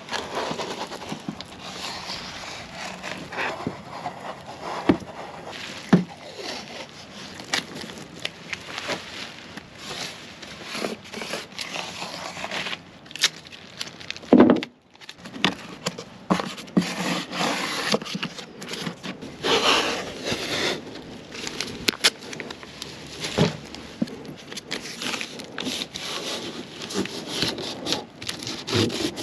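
Blue painter's tape being pulled off the roll, torn and smoothed down by hand along the wooden trim of a truck camper: an irregular run of rips, rubs and taps, with one loud sharp sound about halfway through.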